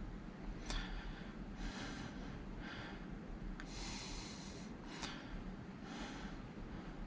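A person breathing through the nose close to the microphone: about six short, hissy breaths, roughly one a second, over a low steady hum.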